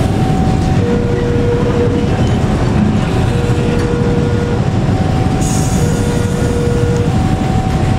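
Empty container flat wagons rolling slowly past during shunting with a steady low rumble, while a two-tone warning signal, like a level crossing alarm, sounds over it, a high tone and a low tone each about a second long, alternating.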